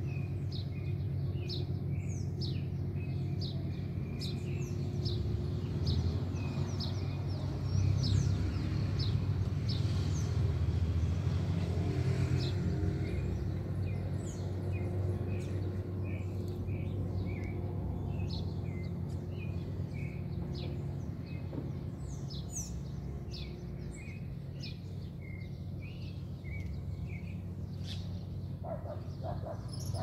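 Double-collared seedeaters (coleiros) feeding in grass, giving short high chirps again and again over a steady low rumble of distant traffic. Near the end a dog starts barking.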